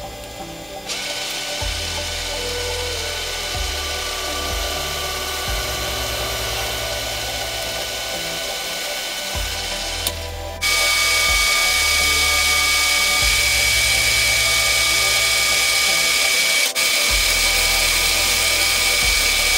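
Metal lathe running, its cutting tool turning a small metal part, with a steady machine whine. The sound jumps louder and shriller about ten seconds in and drops out briefly near the end.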